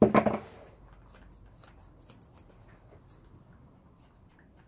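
Grooming scissors snipping the hair along the edge of a West Highland white terrier's ear, a scattering of light, sharp clicks. There is a short loud burst of noise right at the start.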